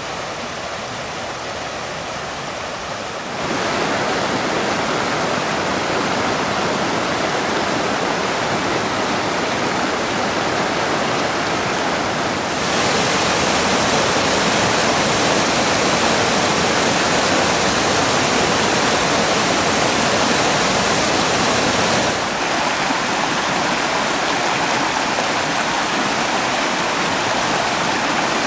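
Whitewater of a mountain river rushing over boulders and logs: a steady, dense rush. It steps louder a few seconds in and again near the middle, then eases slightly later on as the view changes.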